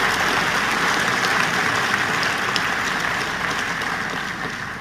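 A large audience applauding steadily, the applause fading away near the end.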